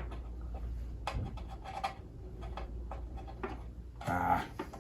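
Cables and connectors being handled and plugged in at a studio desk: small scattered clicks, taps and rubbing over a low steady hum, with a brief murmur about four seconds in.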